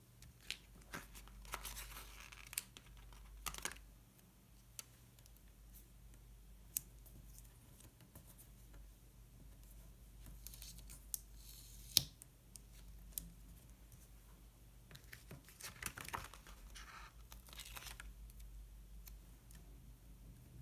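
Paper planner supplies being handled on a desk: scattered light taps and rustles with a few short peeling or tearing sounds, and one sharp tap about twelve seconds in.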